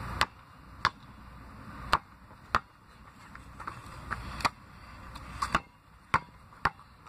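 Basketball being dribbled on asphalt: about a dozen sharp bounces at uneven intervals, a couple of them in quick pairs.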